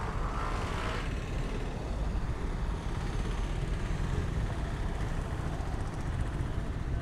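Roadside traffic noise: cars, tuk-tuks and trucks running past on the road, a steady low rumble with a brighter, louder stretch in the first second.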